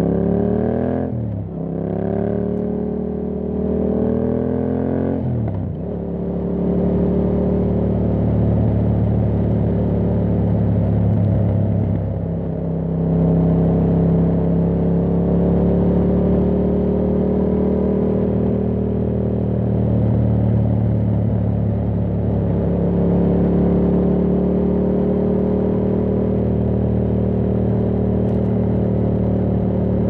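2021 Yamaha MT-07's 689 cc parallel-twin engine through an Akrapovic full carbon exhaust, pulling hard with the revs climbing and dropping at two quick upshifts in the first six seconds. It then runs at fairly steady revs with slow swells, easing off briefly near the middle.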